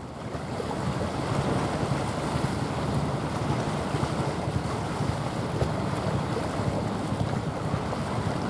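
Steady wind buffeting the microphone over a constant rush of water, fading up over the first second.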